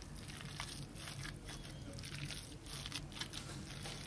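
Soft, irregular squelching of raw minced meat with grated onion being kneaded and squeezed by a gloved hand.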